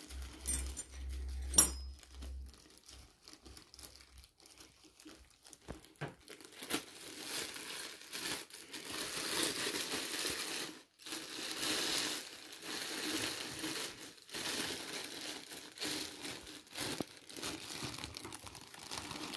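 Clear plastic bag crinkling and rustling in repeated bursts as it is handled and pulled open, with a sharp click about one and a half seconds in.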